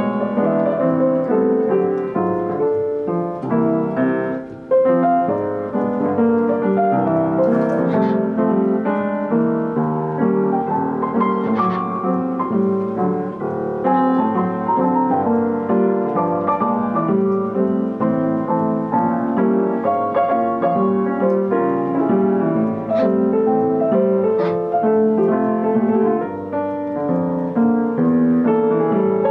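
Piano music played continuously on a Yamaha Disklavier player piano, many notes moving through the middle and upper register. A few brief sharp high sounds cut in over the music now and then.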